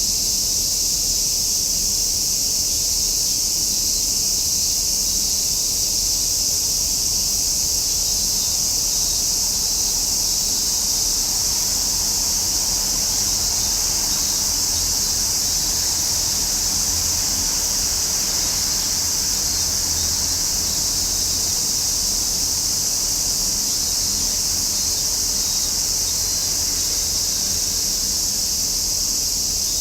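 Chorus of cicadas calling: a continuous, steady, high-pitched buzzing drone.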